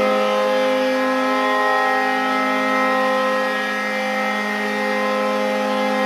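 The Fort Wayne Komets' hockey goal horn sounding one long, steady blast, several notes held together as a chord.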